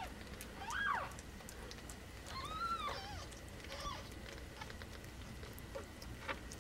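Cat mewing: a few short, high calls that rise and fall, about one second, two and a half seconds and four seconds in.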